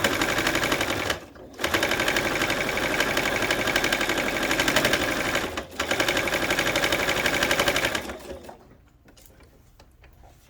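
Baby Lock sewing machine stitching at speed through layered cotton and batting, a fast even run of needle strokes. It breaks off briefly twice and stops about eight seconds in.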